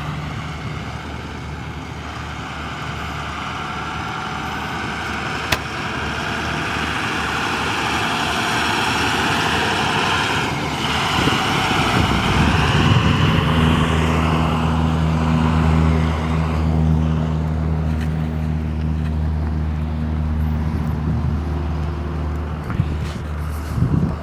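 Engine noise: a broad rushing sound that swells and fades over the first half, giving way about halfway through to a steady low engine hum. A single sharp click comes about five seconds in.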